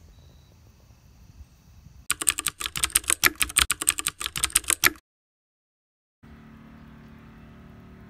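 Keyboard typing sound effect: a rapid run of clicks lasting about three seconds, starting about two seconds in. It cuts off into dead silence, and after about a second a faint background with a low steady hum comes in.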